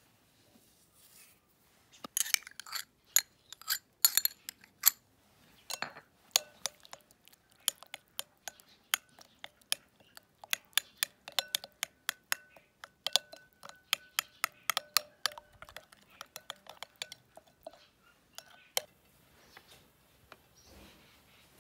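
A metal spoon stirring a thick cream marinade in a cut-glass bowl, clinking rapidly against the glass. The bowl rings faintly under the strikes. The clinking starts about two seconds in and stops a little before the end.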